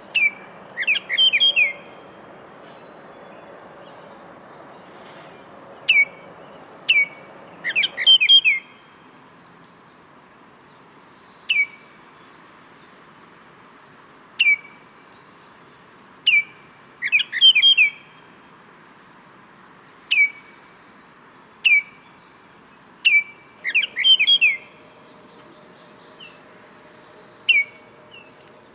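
Baltimore oriole singing: clear, flute-like whistled notes, sometimes single and sometimes run together into quick phrases of several notes, with pauses of a few seconds between them.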